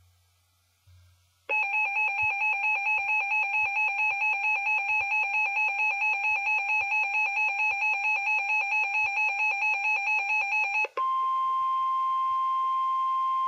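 Emergency alert tones on a weather radio broadcast: a loud, rapidly pulsing, warbling alarm tone for about nine seconds, then after a brief break a steady single tone near 1 kHz, the NOAA Weather Radio warning alarm tone.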